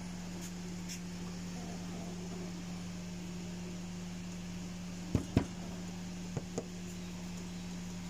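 A steady low mechanical hum, with two pairs of sharp knocks, the first pair about five seconds in and a quieter pair a second later.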